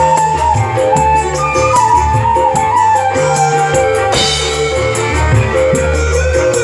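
Instrumental break of an Indonesian song: a flute melody over bass and a steady drum beat, with a cymbal crash about four seconds in.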